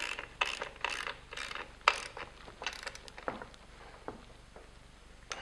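Ratcheting wrench clicking in short bursts, about two a second, as the nut on the pedal-box pivot bolt is tightened; the clicking thins out after about three and a half seconds.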